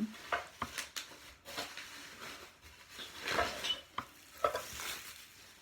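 Ceramic plates being handled and moved about: rustling and scraping with several light knocks and clicks.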